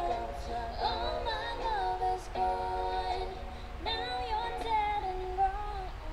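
A young woman singing a slow melody into a microphone, holding and bending notes in short phrases with brief breaths between them.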